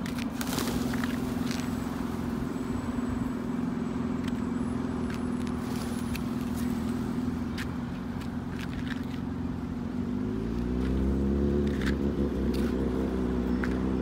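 A motor vehicle engine running steadily, rising in pitch and getting louder about ten seconds in, then holding at the higher speed.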